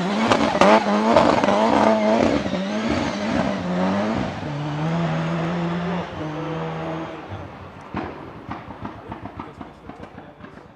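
Nissan 200SX S13's turbocharged engine revving hard, its pitch rising and falling repeatedly, then held steady for a couple of seconds before the sound fades away over the last few seconds, with a few short sharp pops near the end.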